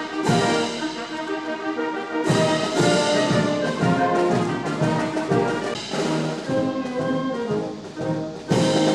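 Ceremonial brass band playing held chords, with strong brass entries about two seconds in and again near the end.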